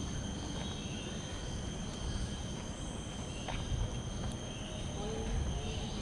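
Outdoor ambience of a steady, high-pitched insect drone over a low rumble.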